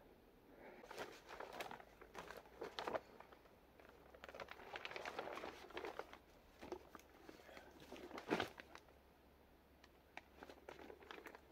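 Large white plastic sheet being unfolded and handled, faintly crinkling and rustling in scattered bursts, with one sharper rustle about eight seconds in. This is the roof-covering sheet being readied for the hut's roof lathing.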